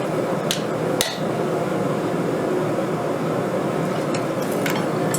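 A forge running with a steady rushing noise, and a few sharp metallic clinks and taps of steel on steel during forging of a Damascus billet, the loudest about a second in.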